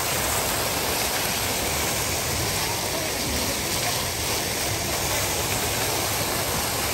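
Pond fountain jets of water falling back onto the pond surface: a steady, even splashing rush with no break.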